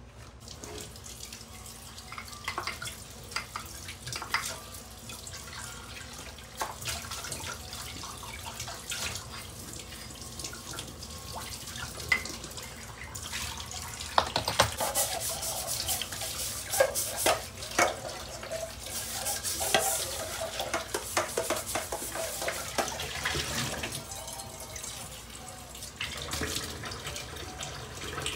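Kitchen tap running into a stainless steel sink while dishes are washed by hand, with frequent clinks and knocks of plates and a pot against the sink and rack. The clatter grows busier and louder from about halfway.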